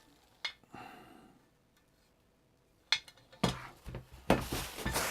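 Bench drill parts and packaging being handled during unboxing: a sharp click about half a second in and another near the three-second mark, then a busier run of knocks, clinks and rustling in the last two seconds.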